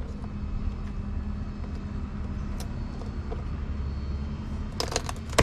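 Kitchen knife cutting a boiled swimming crab in half on a wooden cutting board: a quick cluster of sharp cracks and knocks near the end, with a few faint clicks before it. A steady low rumble runs underneath.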